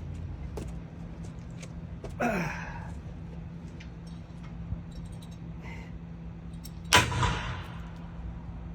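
Two heavy hammer blows on steel, about five seconds apart, the second louder, each ringing briefly. The hammer is driving out a bolt rusted onto the bearing of a crane pulley.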